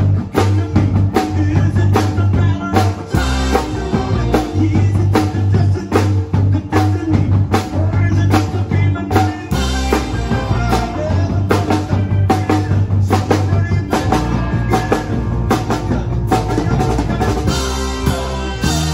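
Live rock band playing: a drum kit keeps a steady beat with kick and snare under electric guitar and electric bass.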